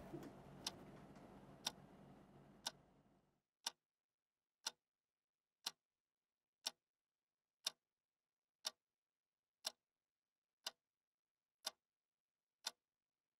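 A clock ticking steadily, one sharp tick a second, over faint room hiss that cuts off about three seconds in, leaving only the ticks.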